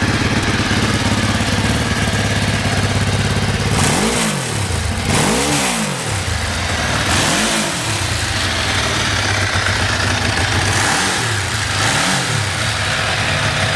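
Ducati 999 Monoposto's L-twin engine idling steadily, then given about five quick throttle blips, each rising in pitch and falling back to idle. The seller describes the idle as stable with no abnormal noise.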